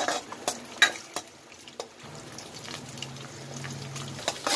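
Eggs sizzling in hot oil in a kadai while a metal spatula scrambles them, with a few sharp clicks of the spatula against the pan.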